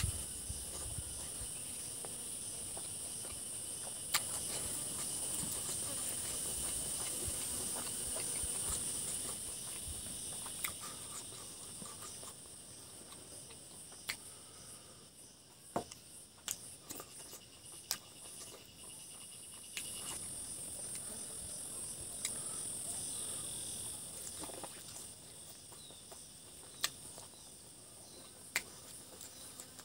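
Steady high-pitched chorus of insects, with scattered sharp clicks and smacks from close by as someone eats with their hands: fingers working rice on a banana leaf and chewing a chicken drumstick.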